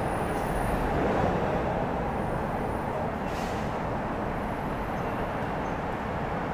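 Seoul Metro Line 8 8000-series (second-batch) train running along the line: a steady rumble of wheels on rail that eases slightly, with a brief faint hiss a little over three seconds in.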